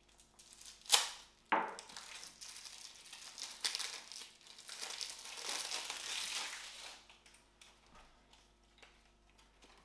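Plastic shrink-wrap on a deck of game cards being slit with a knife and peeled off: a sharp snap about a second in and another just after, then several seconds of crinkling that dies away near the end.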